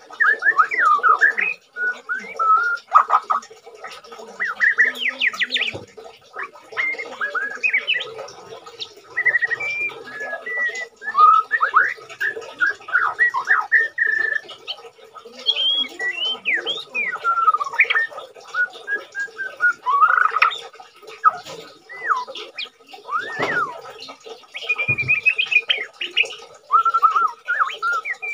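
A caged white-rumped shama sings a continuous, varied song of whistled phrases, quick rising and falling glides and short trills. The bird is singing actively while moulting.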